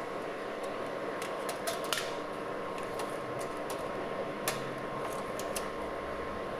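Light plastic clicks as a disc is set into a Dell desktop computer's open optical drive tray and the tray is closed, the sharpest click about four and a half seconds in, over a steady electrical hum.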